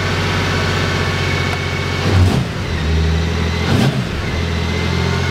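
Honda Gold Wing motorcycle engine idling steadily, with the throttle twisted briefly about two seconds in and again near four seconds, the engine note rising and falling each time.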